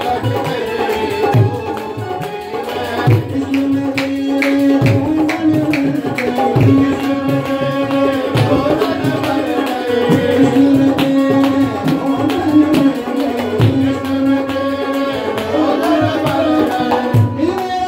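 Live devotional song: a man's voice singing through a microphone over held harmonium notes and a tabla beat, with a deep bass stroke about every second and a half.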